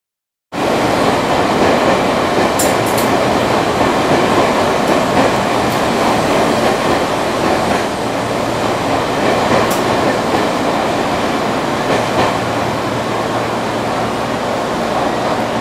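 Electric commuter train running close by on the adjacent track: a loud, steady rumble, with a few brief high clicks or squeaks about three seconds in and again near ten seconds.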